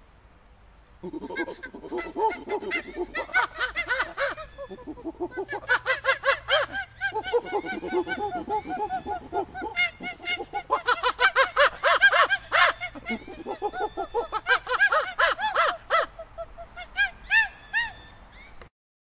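Monkey chatter: a rapid run of short calls that rise and fall in pitch, coming in bouts, starting about a second in and cutting off suddenly near the end.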